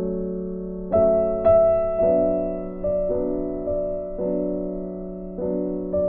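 Slow, gentle piano music: single notes and chords struck about once a second, each left to ring and fade.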